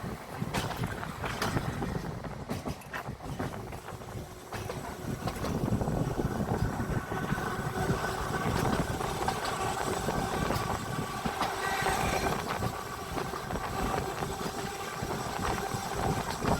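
Electric tram running along its track: sharp wheel knocks over the rails in the first few seconds, then from about five seconds in a louder, steady running noise with a faint whine.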